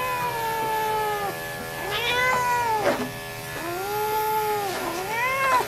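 Distressed long-haired cat yowling while held for clipping: four long drawn-out yowls, each rising and then falling in pitch.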